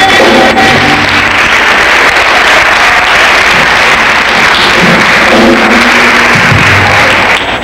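Church congregation and choir applauding and cheering at the end of a gospel song. The song's last held chord dies away in the first second.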